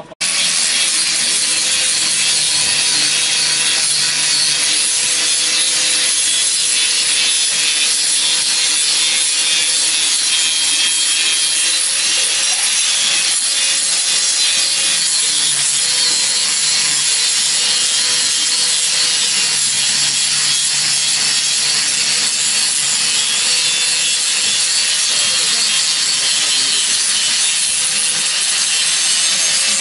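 Handheld electric angle grinder running steadily with its disc pressed on a weld bead on steel tube: a continuous harsh hiss of metal being ground over the motor's steady hum.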